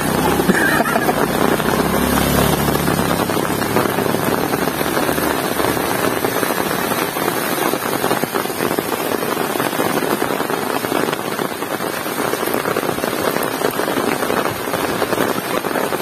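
Heavy rain pouring steadily, with a low rumble underneath that dies away about three seconds in.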